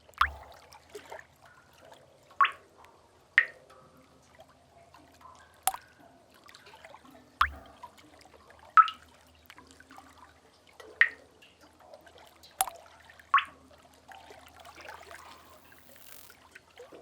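Water drops falling into a pool in a sea cave: about nine separate plinks at uneven intervals of one to two seconds, over a faint steady background wash.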